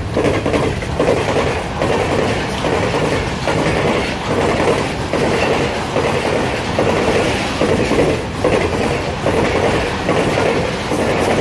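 Pakistan Railways passenger coaches passing close by at speed. Their wheels clatter over the rail joints in a steady, rhythmic clickety-clack over a continuous rumble.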